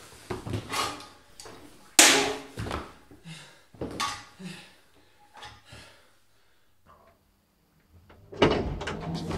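A scuffle: a string of knocks, thuds and bangs in a small room, the loudest about two seconds in, then it falls quiet for a second or two before another loud bang near the end.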